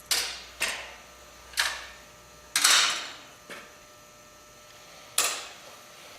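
A series of six sharp metal clanks and clunks, spaced unevenly: a DeWalt miter saw and its rolling stand being handled, unlatched and folded up for storage. The loudest comes a little under three seconds in, and another loud one comes near the end.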